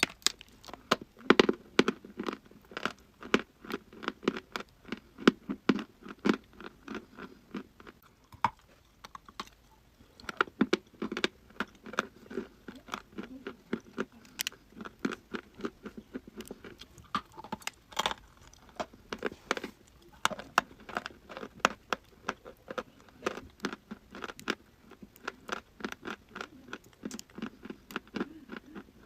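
A person chewing dry, crunchy chalk and clay close to the microphone: rapid sharp crunches, several a second, with a brief pause about a third of the way through.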